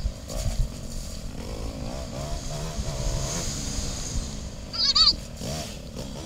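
Yamaha TT-R trail bike's single-cylinder four-stroke engine running at low, varying throttle, heard from on the bike. A brief high-pitched call cuts in about five seconds in.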